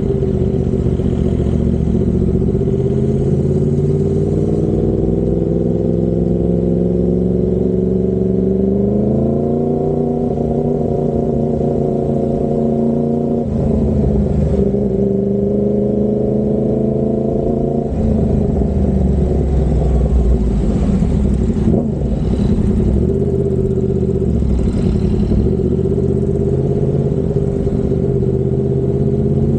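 Yamaha MT-10's 998 cc crossplane inline-four running through an SC Project 70 mm carbon-titanium exhaust while riding. The engine note climbs under throttle about a third of the way in, drops sharply about halfway as the throttle is closed, then holds steady.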